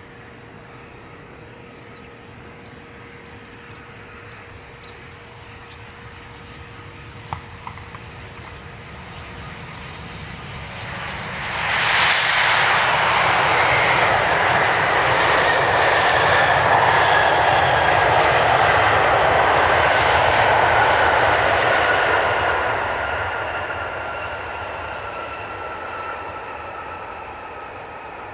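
Boeing 737-800's CFM56 turbofan engines on landing: a low hum grows slowly, then jumps suddenly to a loud roar about twelve seconds in as the jet is on the runway. The roar fades over the last several seconds, with an engine whine that slowly falls in pitch.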